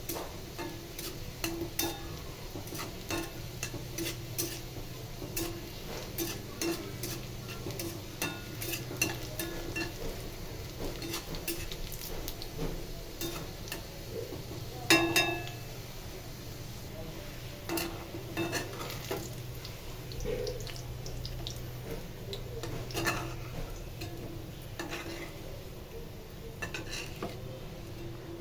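A utensil stirring potato filling in a pan, knocking and scraping against it over and over, with one louder clatter about halfway through. A steady low hum runs underneath.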